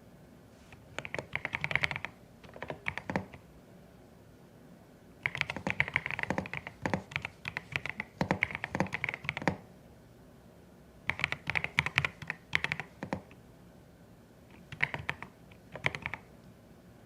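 Typing on a CIDOO ABM081 Stellar mechanical keyboard with Carda switches: rapid keystrokes in bursts of one to four seconds, with pauses between runs. The longest run starts about five seconds in.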